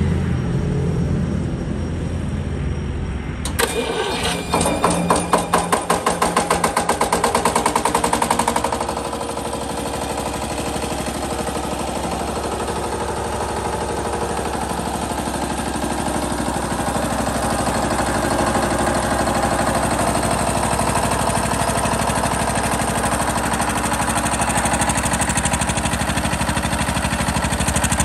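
Single-cylinder Petter-type diesel engine of a 7.5 kVA self-start generator starting on its electric starter: about three and a half seconds in it cranks and fires, running in a loud, fast pulsing beat for a few seconds, then settles into steady running.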